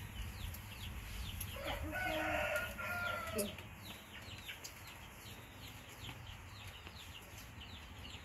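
A rooster crows once, starting about a second and a half in and lasting nearly two seconds, over rapid high chirping that runs all through.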